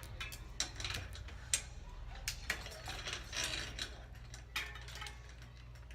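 Irregular light mechanical clicks and ticks from hands-on work on a bicycle, over a steady low hum.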